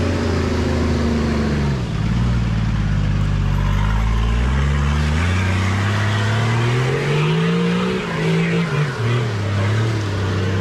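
Four-wheel drive's engine revving under load while climbing a rock ledge; the engine note dips about two seconds in, rises steadily for several seconds, then drops back near the end.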